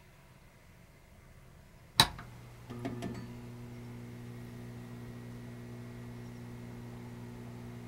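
Intro logo sound effect: a sharp hit about two seconds in, then a low, steady drone of several held tones.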